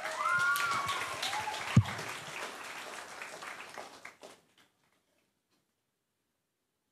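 Audience applauding with a few whoops, fading out after about four seconds, with a single sharp thump about two seconds in.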